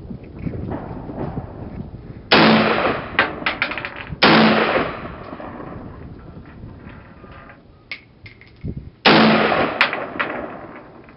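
An AK-47 rifle in 7.62×39mm firing three single shots: two about two seconds apart, then a third about five seconds later. Each loud crack trails off over about a second.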